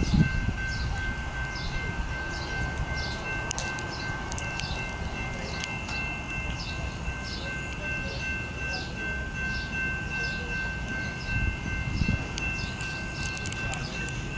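Railroad grade-crossing bell ringing steadily at about two strokes a second, over a low steady rumble.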